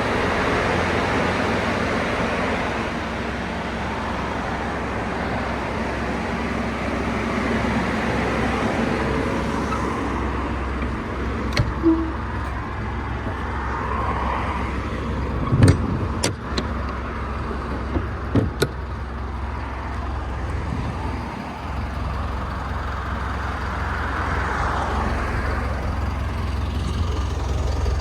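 Truck engine idling steadily with a low hum, with a few sharp knocks or clicks about halfway through.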